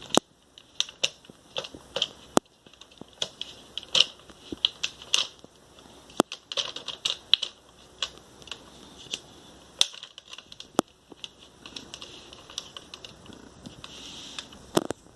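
Irregular sharp plastic clicks and taps, sometimes several in quick succession and then a pause, from a plastic action figure being handled and its parts moved.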